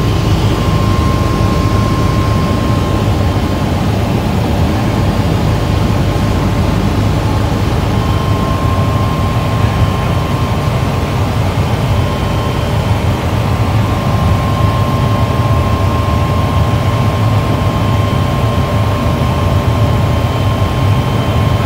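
Helicopter cabin noise in flight: a loud, steady drone of engine and rotor heard from inside the cabin, with a thin steady whine running through it.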